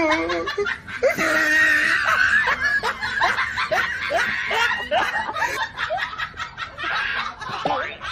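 A person laughing hard, a long run of short laughing breaths repeated two or three times a second.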